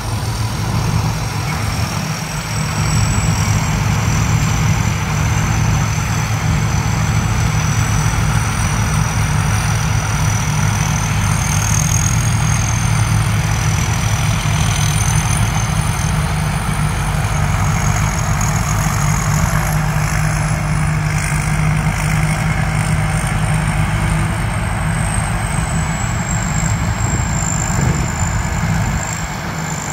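Rice combine harvesters' engines running steadily as the machines harvest, with a thin high whine that drifts slowly in pitch above the engine note.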